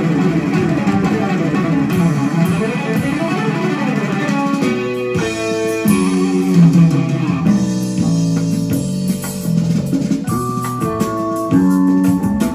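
Jazz-fusion recording with electric guitar and bass, played back over a Sansui 9090 receiver and Celestion Ditton 442 loudspeakers and heard in the room. It opens with fast rippling guitar runs, and about five seconds in these give way to a line of separate held notes.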